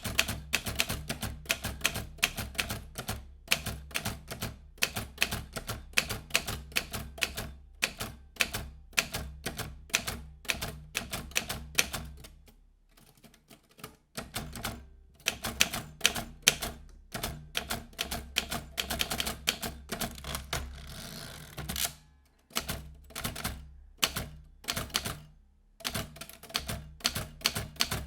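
Vintage manual typewriter being typed on: rapid runs of sharp key strikes, broken by a short pause about halfway through and a brief rasping stretch a few seconds later.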